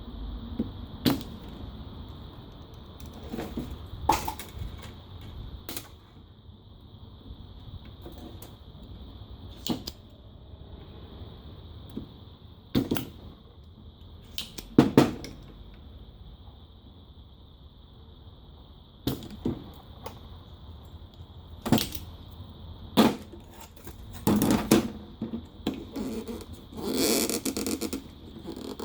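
Desoldering tools at work on a circuit board: sharp clicks and knocks every few seconds over a faint steady high whine, with a longer rustle near the end.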